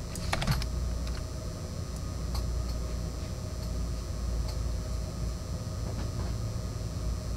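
Low steady background hum with a few faint clicks, the clearest pair about half a second in.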